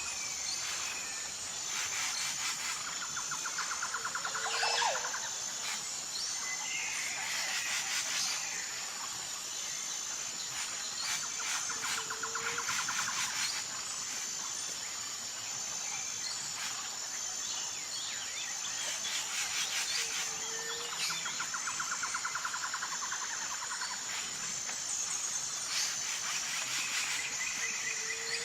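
Outdoor ambience of insects keeping up a steady high-pitched trill. Over it an animal call repeats about every eight seconds: a short trill followed by a brief lower note.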